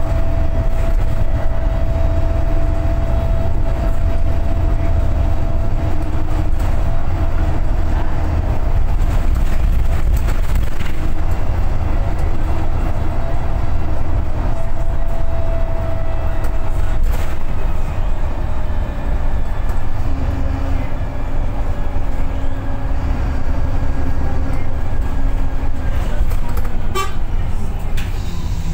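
Inside a VDL SB200 Wright Pulsar 2 single-deck bus on the move: a deep engine and road rumble with a steady whine that slowly sinks in pitch over the first half. Near the end there is a brief cluster of clicks and a squeak.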